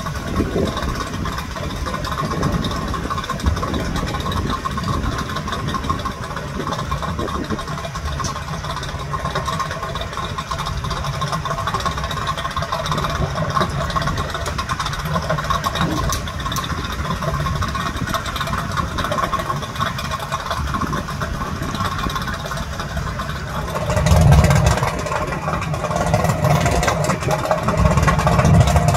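Outboard boat motors idling with a steady low rumble and hum. About 24 seconds in, the engine noise swells briefly, and it grows louder again near the end.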